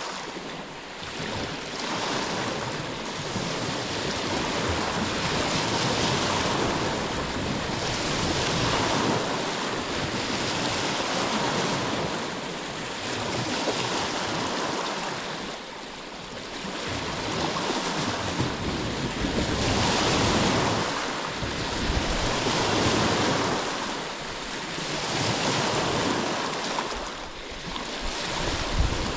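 Ocean waves breaking and washing on a shore, a steady surf that swells and eases every few seconds.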